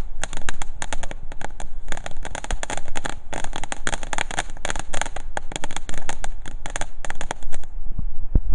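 Crackling firework fountain: a dense, rapid stream of sharp crackles for about seven and a half seconds that then stops abruptly.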